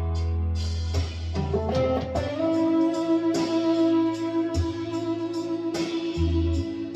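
Gibson Les Paul Traditional electric guitar played over a drum beat: a quick run of notes about a second and a half in, then one long sustained note.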